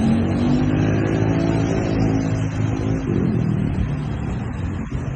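Motor vehicle engine running close by, then fading away from about three seconds in.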